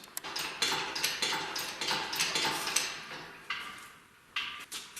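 Clanks and knocks as a Hemi V8 engine sitting on sawhorses is spun around by hand: a quick run of clatter for the first three seconds, then a few single knocks.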